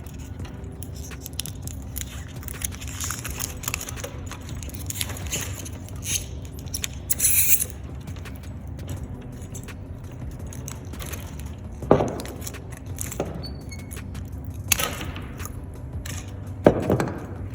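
Hands working the end of a shielded cable: small metallic clicks and the crinkle of its foil shield and wires, with a louder rustle partway through and three sharp knocks near the end.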